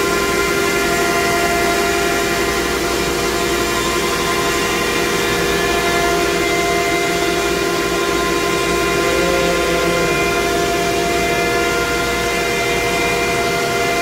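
A plastic pelletizing line running steadily: a ring blower and the pelletizer machinery keep up a loud, even whine of several held tones over a machine hum.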